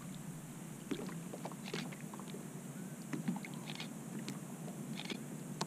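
Water lapping and washing against a kayak hull, a steady low wash with scattered light taps and knocks.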